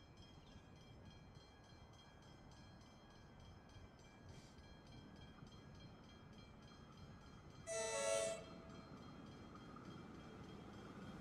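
Comeng electric suburban train sounding its horn once as it approaches, a short blast of several tones together about two-thirds of the way in. The low rumble of the approaching train grows louder toward the end.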